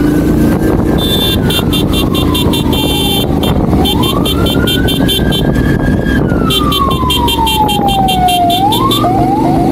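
Ambulance siren wailing, its pitch sliding slowly up and down about every four to five seconds, with two spells of rapid high beeping pulses over it and a quick yelp near the end. Under it runs the steady rumble of motorcycle engine and wind.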